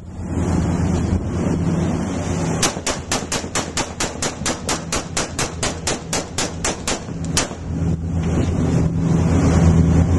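An AR-style rifle fired in a rapid string, about four shots a second for some four seconds, starting about two and a half seconds in, with one last shot after a short pause. The boat's engine hums steadily underneath and grows louder near the end.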